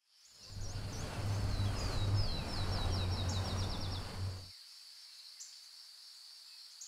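Outdoor nature ambience: birds chirping, including a trill of quick falling notes that speeds up, over a steady high whine. A low rumble fills the first four seconds or so, then stops abruptly, leaving the birds and a faint hiss.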